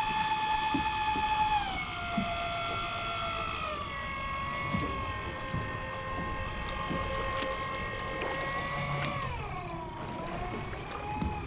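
Electric deep-drop fishing reel winding in line: a steady motor and gear whine that steps down in pitch twice in the first few seconds, sags lower near the end and picks up again.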